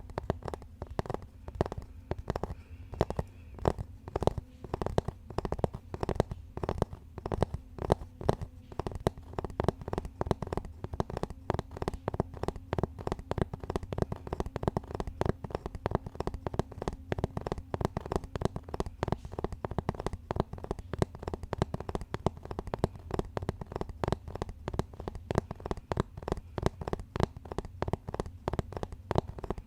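Fast, continuous tapping, several taps a second with uneven strength, as in ASMR tapping on objects with fingertips or nails.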